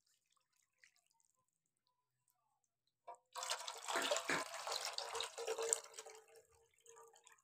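Rinse water pouring off a plate of washed chicken pieces into a wok, splashing. It starts about three seconds in and dies away to a trickle a few seconds later.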